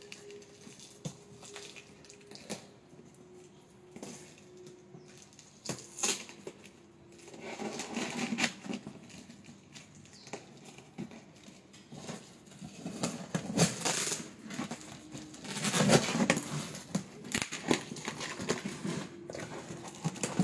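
Scissors cutting and tearing the packing tape on a cardboard shipping box, with the cardboard crackling, scraping and rustling in irregular bursts and a few sharp knocks; the busiest stretches come about a third of the way in and again toward the end.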